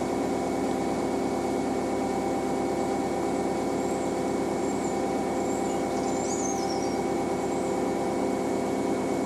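A narrowboat's engine running steadily at low, even revs while the boat moves under way.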